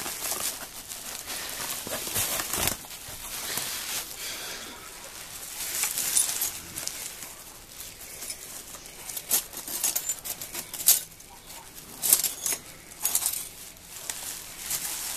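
Plastic sheeting and bubble wrap rustling as they are pulled back, with loose shards of the clock case's broken glass clinking together in irregular bursts, a few sharper clinks in the second half.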